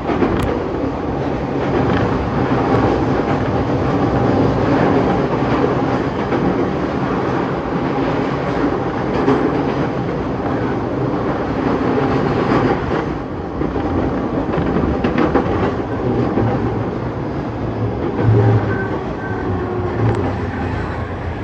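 Running noise heard inside the cabin of a JR E231 series commuter train: a steady rumble of wheels on the rails with clicks over the rail joints, as the train draws into a station near the end.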